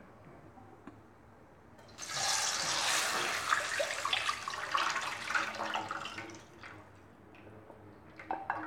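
Tamarind and jaggery water poured from a glass bowl into a kadhai of hot ghee and cumin, splashing into the pan for about four seconds starting about two seconds in. A few light knocks near the end.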